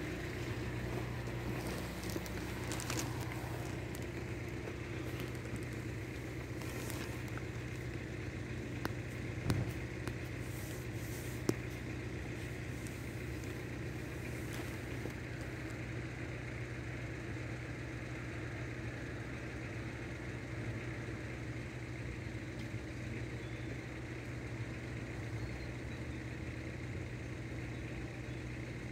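Steady low engine hum of a vehicle idling, with a couple of brief knocks about nine and eleven seconds in.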